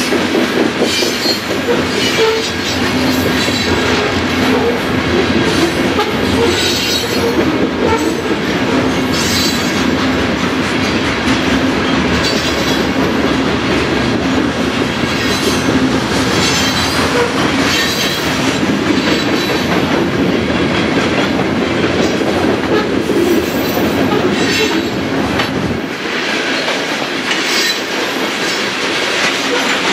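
Freight train of covered grain hopper cars rolling past: a steady rumble and rattle of wheels on rail, with brief high squeals from the wheels every few seconds. The deep low rumble thins out about four seconds before the end.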